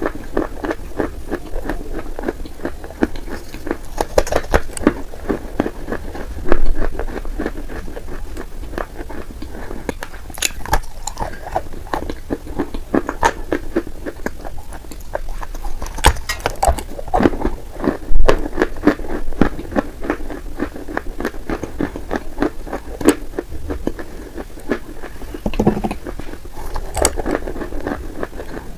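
Close-up chewing of dried Turkestan edible clay chunks coated in wet clay paste: a dense, steady run of crunching and crackling clicks, with a couple of louder knocks along the way.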